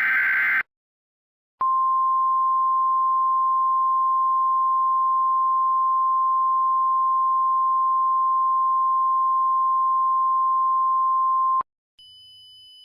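The last of the Emergency Alert System's SAME header data bursts, a short buzzy screech that ends about half a second in. About a second later the 1050 Hz NOAA Weather Radio warning alarm begins, a single steady tone held for ten seconds that cuts off sharply near the end.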